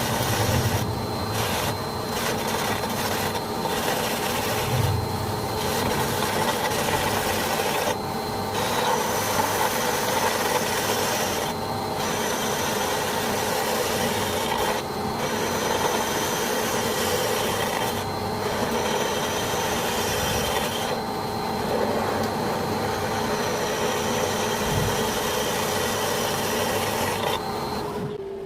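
A machine tool working material with a continuous rasping, grinding noise over a steady whine, the scraping dipping briefly every few seconds.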